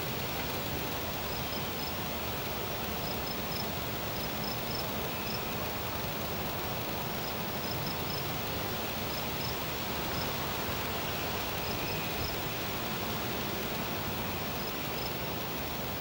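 Insects chirping: short, high chirps in little clusters of two or three, recurring every second or two over a steady rushing background noise.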